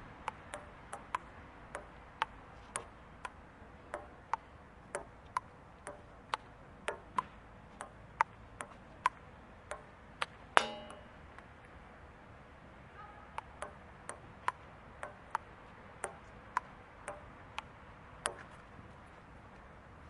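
Table tennis rally: a ping-pong ball clicking off bats and table at about two hits a second. The rally ends about ten seconds in with one louder knock that rings briefly. After a short pause a second rally starts and runs until near the end.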